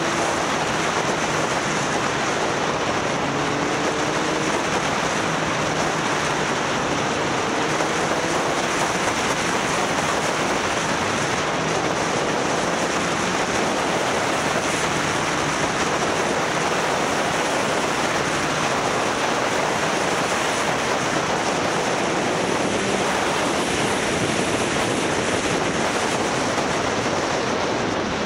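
Motorcycle riding at speed: steady rushing wind noise on the camera microphone, with the engine faint underneath, its pitch climbing a few times in the first half as it accelerates.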